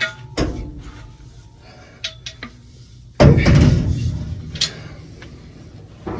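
Steel parts of a New Holland RB560 round baler clanking and knocking as a roller and its bearings are worked into place, with one loud metal crash about three seconds in.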